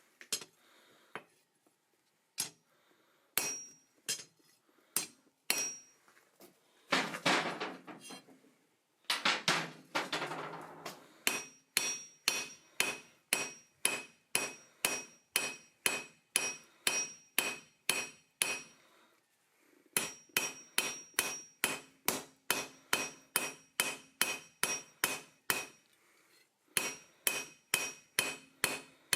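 Hand hammer striking hot iron on an anvil, with the anvil ringing after each blow: a few scattered strikes, then steady runs of about three blows a second broken by short pauses. Two longer, rough noises stand out as the loudest sounds early on.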